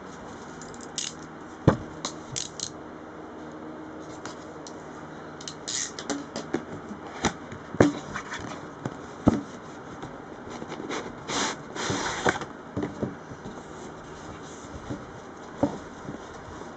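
Hands handling and opening a cardboard graphics-card box: scattered taps, knocks and scrapes of cardboard against itself and the table, with a couple of longer scrapes about two thirds of the way through.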